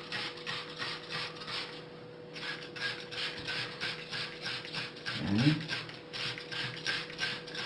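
Cloth rubbed back and forth over greasy ceramic kitchen tiles in quick, even strokes, with a short break about two seconds in.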